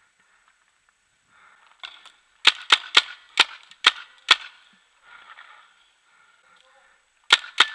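Paintball marker firing: six sharp shots in quick succession over about two seconds, then a pause and two more in quick succession near the end.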